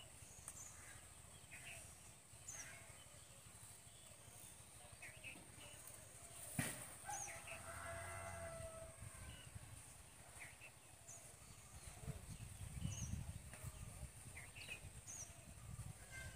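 Faint rural outdoor ambience: small birds chirping now and then over a steady high insect hum. About six and a half seconds in there is a sharp click, followed by a faint farm animal call lasting about two seconds, and a low rumble comes in later.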